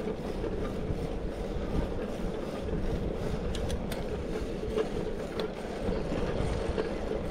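Bicycle rolling along an asphalt road, heard from the rider's handlebars: steady tyre and road noise with wind rumbling on the microphone, and a few light rattling ticks around the middle.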